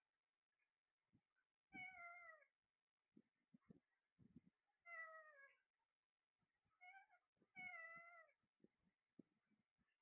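Four meow-like calls, each under a second long and falling slightly in pitch, with faint short knocks in between.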